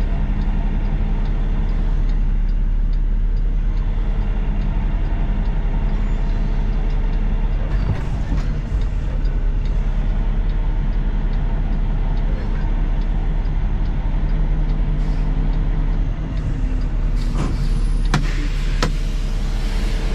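Semi truck's diesel engine running steadily, a low drone heard from inside the cab. A few sharp clicks come near the end.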